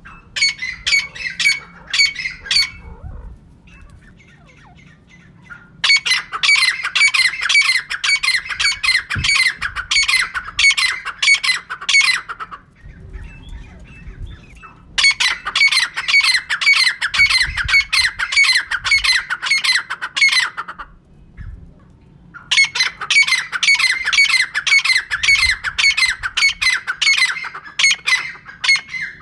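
Female francolin (teetar) calling: a short run of notes at the start, then three long runs of rapid repeated calls, about three notes a second, each run lasting about six seconds with short pauses between them.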